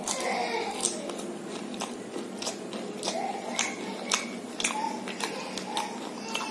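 Close-up bites and chewing of crisp fried snacks (samosa and jalebi), with sharp crunches about every half second.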